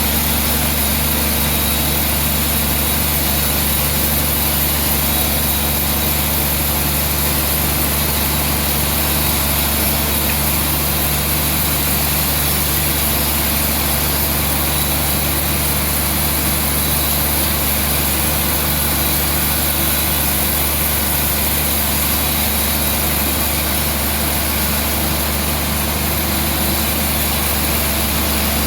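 Sawmill machinery running steadily, a constant engine-like hum and drone with no change in pitch or level.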